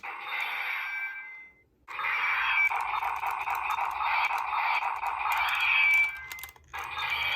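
Electronic sound effects from a Kamen Rider Saber toy sword's small built-in speaker, thin and tinny, in three bursts: a short one, a long one of about four seconds, and another short one near the end.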